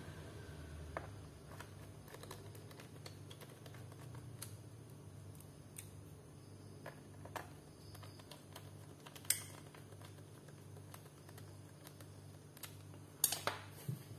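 Scattered light clicks and taps of a laptop's back cover being fitted and fastened by hand, with a louder click about nine seconds in and a quick run of clicks near the end, over a faint steady low hum.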